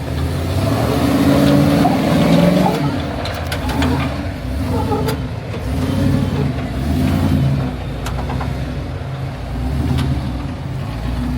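An off-road 4x4's engine revving in repeated surges, rising and easing every couple of seconds, with a few sharp knocks in between.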